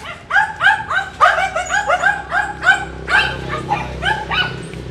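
A dog barking in a fast, steady run of short barks, about three or four a second.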